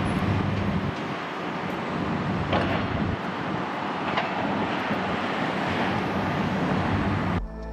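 City street traffic, a box truck and cars driving through an intersection, with wind buffeting the microphone. A couple of short knocks stand out about two and a half and four seconds in.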